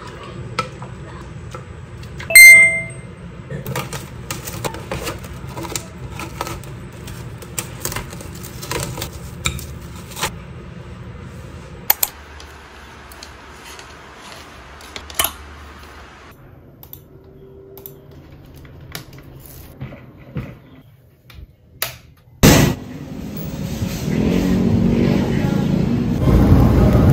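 A metal spoon stirring and clinking in a glass mixing bowl, with one loud ringing clink a couple of seconds in. Then clothes hangers clacking as they are pushed along a closet rail, a loud knock, and near the end steady outdoor traffic noise.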